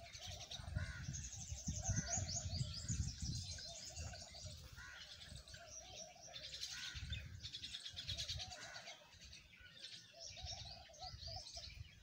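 Small songbirds chirping and twittering in bursts of quick high trills, with a weaker lower warbling call and an uneven low rumble underneath.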